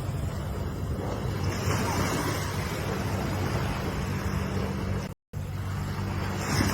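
Ocean waves washing in, the surf noise swelling and easing every few seconds over a steady low rumble of wind on the microphone. The sound cuts out completely for a split second about five seconds in.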